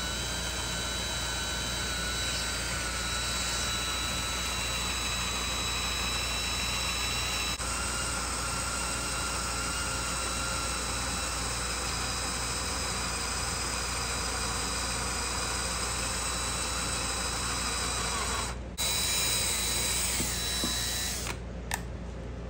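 Electric power tool running continuously with a steady whine whose pitch wavers slightly as it works. It cuts out briefly near the end, runs again for a couple of seconds, then stops.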